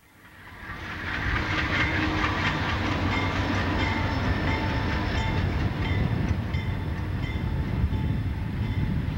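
Passing freight train: a diesel locomotive and a string of open hopper cars rumbling and clattering along the rails, fading in over the first second or so.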